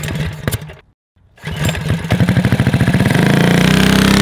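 Engine running in edited bursts: it is cut off for a moment about a second in, then picks up again and revs up to a steady high drone near the end.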